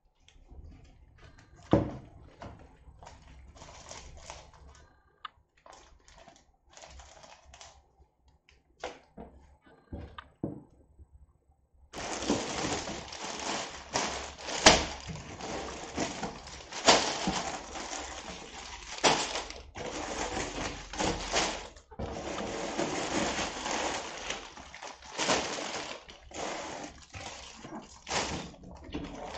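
Plastic bags of building-block parts crinkling and rustling as they are handled and dropped onto a pile, with the bricks inside clattering. For the first twelve seconds or so there are only light rustles and taps, then dense crinkling with several sharp knocks.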